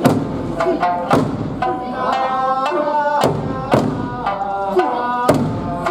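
Eisa music: taiko drums struck about twice a second in a steady beat over a sung melody.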